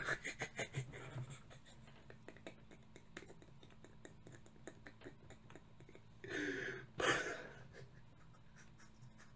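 A man laughing quietly and breathily into his hand: a quick run of short pulses at the start, then faint scratchy rustling, and two louder breathy bursts of laughter about six and seven seconds in.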